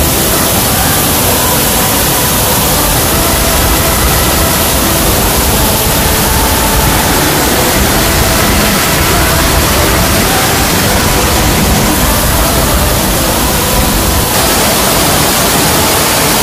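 Waterfalls pouring onto rocks and into pools: a loud, dense, even rush of water. Its texture shifts slightly a couple of times, and faint steady tones sit underneath.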